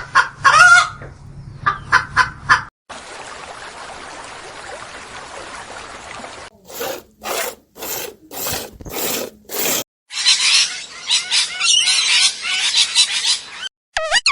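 A run of animal calls cut one after another: short pitched calls, then a steady hiss, then about seven harsh calls spaced evenly, then a stretch of dense rasping chatter.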